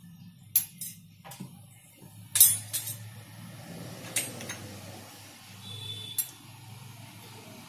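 Scattered sharp clinks of metal kitchen utensils and dishes knocking together, about eight in all, the loudest about two and a half seconds in, over a low steady hum.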